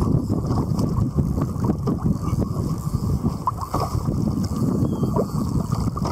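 Wind buffeting the microphone, a steady low rumble, with sea water lapping against a kayak hull.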